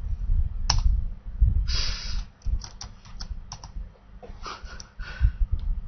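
Typing on a computer keyboard: irregular key clicks, one sharp click just under a second in and a quick run of keystrokes a couple of seconds later.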